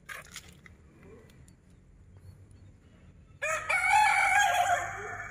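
A rooster crowing: one long call that starts suddenly about three and a half seconds in and is still going at the end, the loudest sound here. A few faint clicks near the start.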